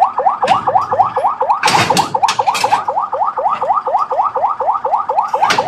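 Electronic siren sounding a fast repeating upward sweep, about six times a second, with brief bursts of rushing noise from passing traffic or wind about two seconds in.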